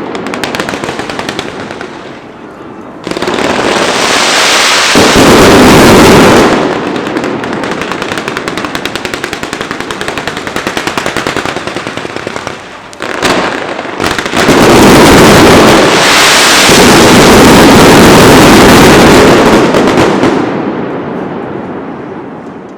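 Fireworks show: dense rapid-fire bangs and crackling, swelling twice into very loud stretches with quieter crackle between, then dying away near the end.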